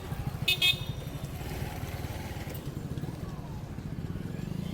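Motorcycle engine running steadily in street traffic, with a short, loud vehicle horn honk about half a second in.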